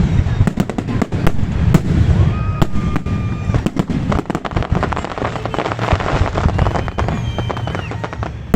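Festive fireworks salute: rapid bangs and dense crackling over a low rumble, thickest a little past the middle, with a few held whistles among the bursts.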